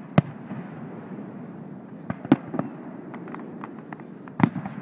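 Aerial fireworks shells bursting: sharp bangs just after the start, a little past two seconds in and near the end, with scattered smaller pops between them.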